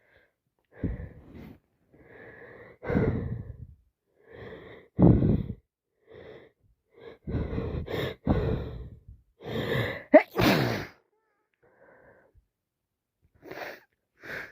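A woman's run of sneezes, each led by a quick gasping inhale, with wheezy breaths between them: non-stop sneezing from a cold on top of allergies.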